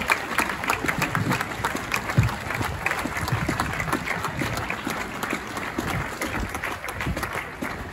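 Crowd applauding, a dense patter of many hands clapping that gradually thins and fades toward the end.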